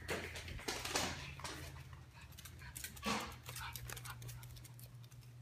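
A small dog moving about on a hardwood floor: scattered light clicks and rustles over a faint steady hum.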